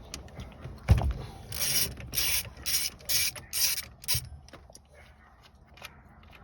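Ratchet wrench with a 13/16 socket working loose the steering-wheel retaining bolt of a 1976 Chevrolet C10. A sharp knock about a second in, then about six quick ratcheting strokes, roughly two a second.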